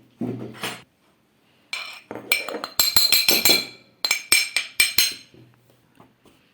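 A utensil clinking and scraping against a bowl as boiled garlic is mashed into ground fenugreek. A brief scrape comes near the start, then from about two seconds in a quick run of ringing clinks, with a short break in the middle.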